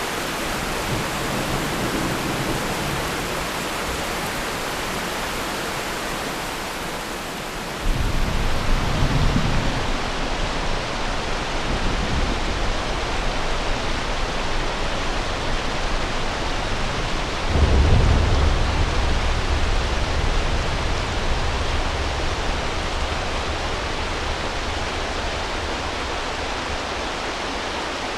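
Rain falling steadily, with thunder rumbling in twice. A sudden roll starts about eight seconds in, and a louder, longer one starts past the middle and slowly dies away.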